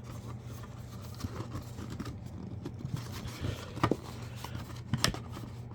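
Scattered light taps, clicks and rustles of a cardboard trading-card display box and its packaging being handled and opened, over a steady low hum.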